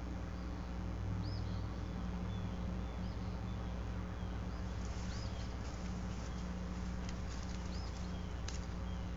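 Steady low hum from an outdoor nest camera's microphone, with short high bird chirps every second or two and a sharp click near the end.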